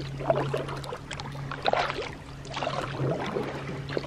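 Kayak paddle strokes: water swishing and dripping off the blades in uneven splashes about once a second, over a steady low hum.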